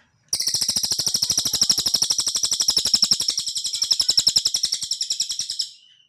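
A cililin songbird singing one long, rapid trill of evenly repeated high notes, about ten a second, lasting about five seconds before fading out.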